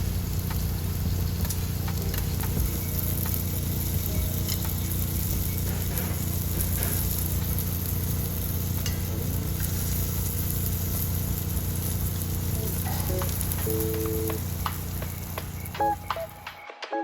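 Pork belly sizzling on a grill, a steady hiss over a low rumble, cutting off suddenly near the end.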